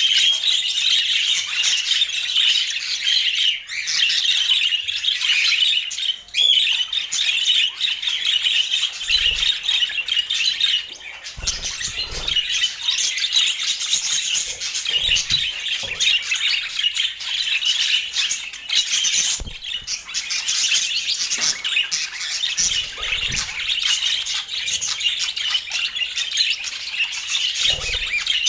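Budgerigars chattering: a dense, continuous warble of many overlapping chirps and squawks, with a few brief low thumps.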